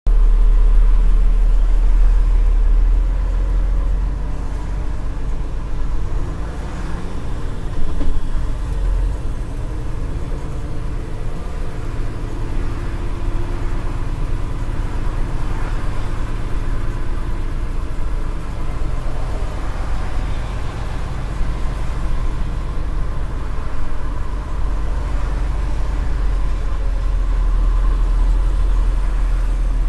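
Steady low rumble of a truck's engine and road noise heard from inside the cab while it crawls in heavy autobahn traffic, a little louder in the first few seconds.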